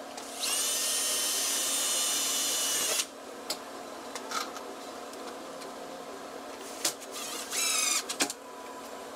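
Cordless drill fastening a wooden lantern mounting bracket to the wall. It gives a steady motor whine for about two and a half seconds, then a few light clicks and knocks, then a short second run near the end that rises slightly in pitch.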